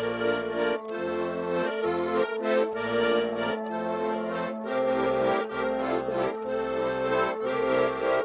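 Accordion playing an instrumental tune: sustained chords over a bass line that changes every second or so.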